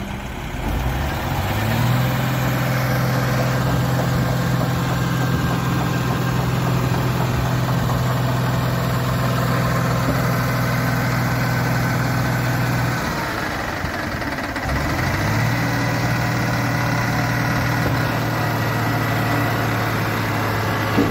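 Diesel engine revved up and held at a steady high speed, easing off about 13 seconds in and revving up again about two seconds later.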